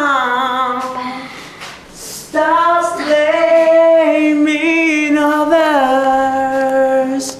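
A man singing unaccompanied, holding long wordless vowel notes. One note fades out in the first second, and from about two and a half seconds in a long wavering held line steps down to a lower note near six seconds.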